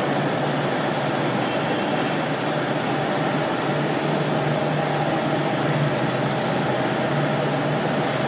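Steady mechanical drone of an industrial continuous fryer line running: a constant low hum with a few steady higher tones over an even hiss, and no distinct knocks.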